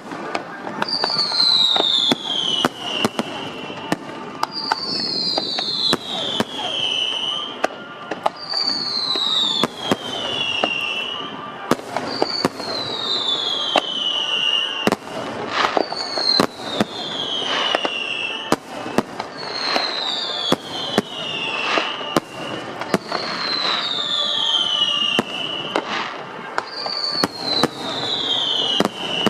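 Aerial fireworks display: a steady run of sharp bangs and crackles, with a whistle that falls in pitch for about two seconds recurring roughly every four seconds, eight times in all.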